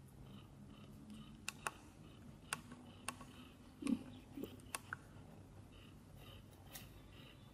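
Kittens suckling at their mother cat: faint scattered wet clicks and smacks, with a couple of short soft low sounds about four seconds in.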